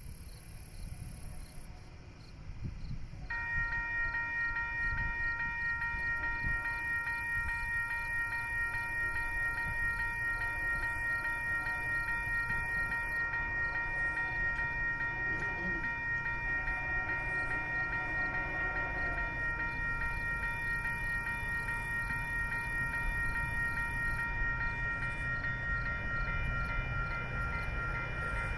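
Railway level-crossing electronic warning bell switching on about three seconds in and ringing steadily as the crossing activates for an approaching train, over a low rumble that builds slightly near the end.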